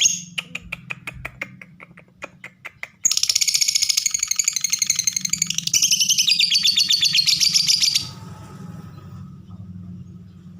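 Lovebird giving its harsh, rough-voiced song: a run of sharp ticking chirps for about three seconds, then a loud, very rapid chattering trill for about five seconds that stops abruptly. This is the kind of harsh lovebird call used as a lure to set quiet lovebirds calling back.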